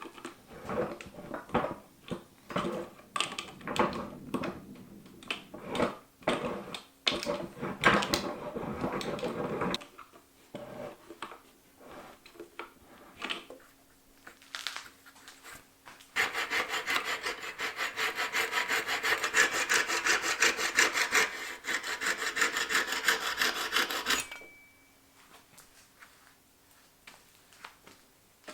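Scraping and rubbing strokes of hand work on an old wood rasp: irregular strokes at first, then after a few scattered knocks a steady, fast scrubbing for several seconds that stops abruptly.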